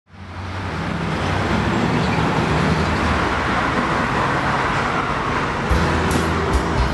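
Street traffic noise from passing cars fading in from silence to a steady, loud wash, over a low steady hum. Music with a drum beat comes in near the end.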